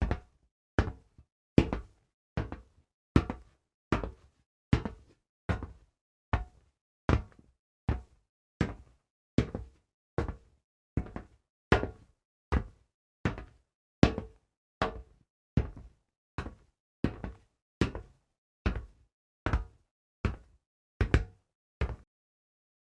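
Slow, evenly paced footsteps, each step a sharp knock, about one step every 0.8 seconds.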